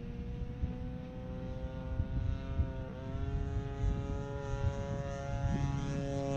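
Stinger 26cc gas engine of a Top Flite Beechcraft Staggerwing RC model airplane droning steadily in flight, its pitch dipping briefly about halfway through and growing louder near the end as the plane comes closer.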